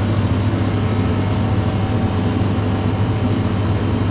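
Motorcycle on the move: a steady low engine drone under a constant rush of wind noise, picked up by a helmet-mounted microphone.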